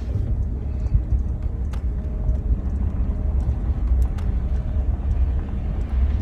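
Car driving slowly, a steady low rumble of engine and tyres heard from inside the cabin, with a few faint light ticks.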